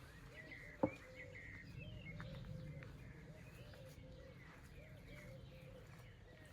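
Birds calling outdoors: a low call repeated in quick, even notes, with higher chirps over it. A single sharp knock sounds about a second in.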